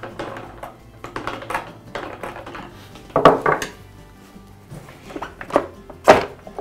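Plastic pump cover of an oilless air compressor being worked loose and pulled away by hand: irregular clatters and knocks of hard plastic, loudest about three seconds in and again near the end, over quiet background music.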